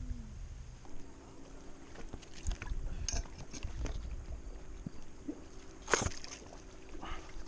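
A crumpled plastic water bottle crinkling and clicking in a hand close to the microphone, in irregular crackles with one sharp, loud crackle about six seconds in. A steady low drone runs underneath.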